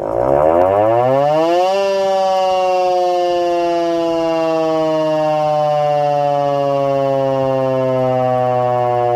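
Soviet S-28 electromechanical civil-defence siren starting up: its wail rises steeply for about two seconds, then slowly sinks in pitch as it winds down.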